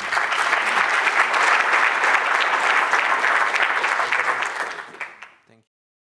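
Audience applauding, a dense patter of many hands clapping that fades and stops about five and a half seconds in.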